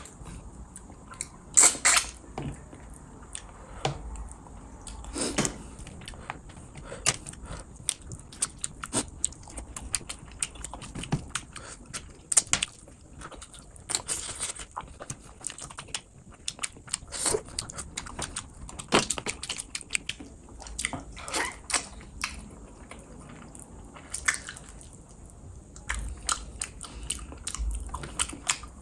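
Chewing a mouthful of rice and fish curry eaten by hand, with many short, irregular sharp mouth clicks. The loudest come right at the start and about two seconds in.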